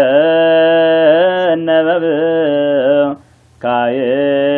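Solo male voice chanting Ethiopian Orthodox Tewahedo zema in Ge'ez, holding long drawn-out notes with small wavering ornaments. It breaks off for a breath a little after three seconds in and resumes.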